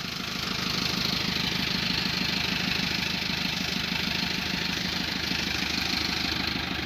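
Vehicle engine running at a steady idle, a little louder from about a second in.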